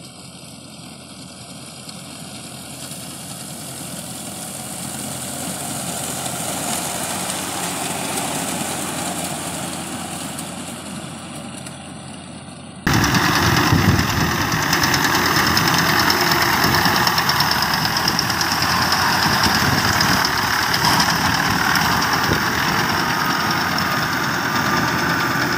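Tractor engine running with a mounted reaper cutting standing crop: a dense, even mechanical noise that slowly grows louder and then fades. About halfway through it cuts abruptly to a louder, steady run of the same kind of engine-and-reaper noise.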